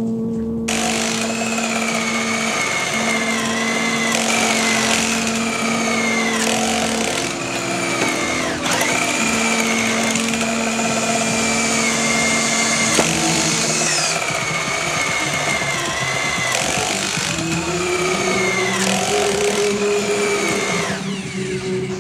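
A power drill running, its pitch dipping and recovering every second or two as it works, over background music with sustained low notes.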